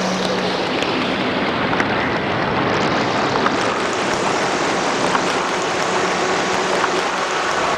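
Eurorack modular synthesizer patch run through an Endorphin.es Ghost effects module, producing a dense, noisy, distorted wash with no clear pitch. The top end is dulled early on and opens back up after about three seconds, and a few faint clicks sit in the noise.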